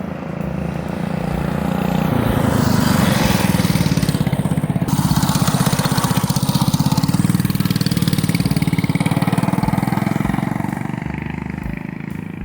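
Coleman CT100U minibike's 212cc single-cylinder engine, fitted with a billet connecting rod and flat-top piston, running on a gentle break-in ride. It grows louder about two seconds in, holds, then fades near the end, as the bike passes by. The riders say it runs smoother with the lighter rod.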